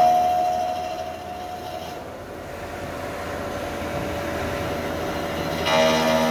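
TOS Varnsdorf WH 10 horizontal boring mill running, giving a steady high whine with overtones. The whine fades out after about two seconds, leaving a duller running noise, and a new whine sets in near the end.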